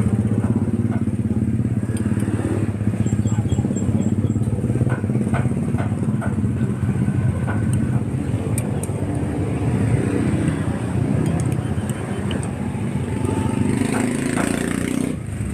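Motor vehicle engine running steadily at a constant low hum, with scattered light clicks and taps over it.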